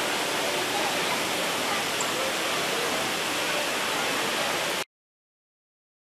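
Waterfall: a steady rush of falling water that cuts off abruptly about five seconds in.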